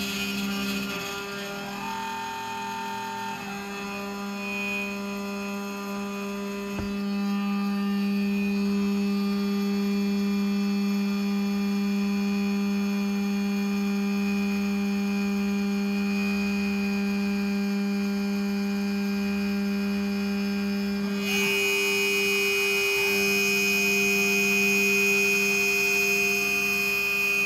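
MillRight Carve King CNC with a DeWalt router, milling quarter-inch aluminium plate with slow, conservative cuts: a steady whine of several tones at once. About three quarters of the way through it gets a little louder and a shrill high tone joins.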